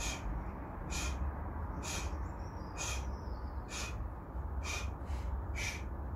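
A man breathing hard in short, sharp breaths while doing knee tucks, about one breath a second in time with the reps, over a steady low rumble.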